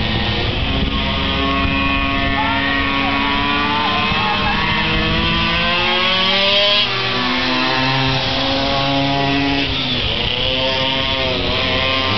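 Several minimoto racing bikes' small two-stroke engines running hard together, their pitches rising and falling as the riders open and close the throttle.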